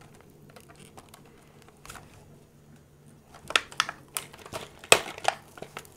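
Fingers picking and pulling at the clear plastic blister on a Play-Doh Wheels toy box. Faint light ticks come first, then from about halfway a run of sharp plastic clicks and crackles.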